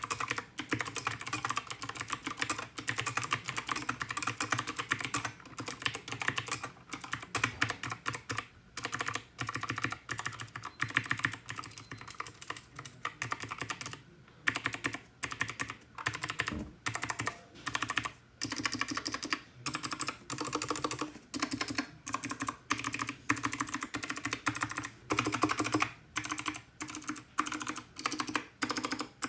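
Typing on a 60% mechanical keyboard with clicky Gateron Blue switches (HK Gaming GK61): fast, irregular runs of sharp clicks with brief pauses between bursts.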